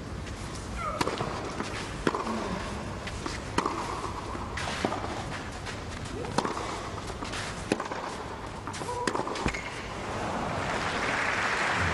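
Tennis rally on a clay court: a string of sharp racket-on-ball hits about a second apart. Crowd applause swells near the end as the point finishes.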